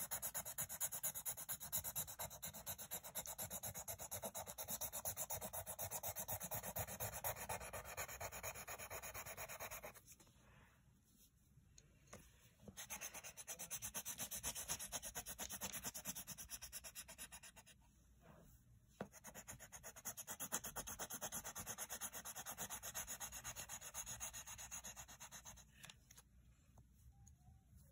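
Coloured pencil shading back and forth on lined notebook paper: a fast, scratchy rubbing in three long spells with short pauses between them, stopping near the end.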